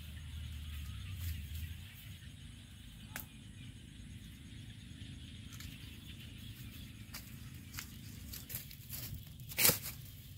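Crunching and rustling of footsteps along a grassy path, with scattered irregular clicks and one sharper crack near the end.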